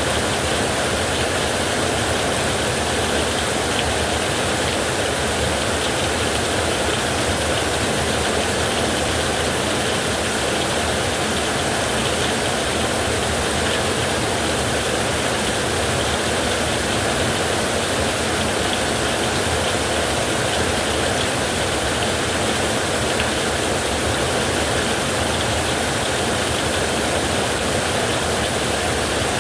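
Heavy rain falling on a metal roof in a windstorm: a steady, even rush of noise with no single drops or gusts standing out.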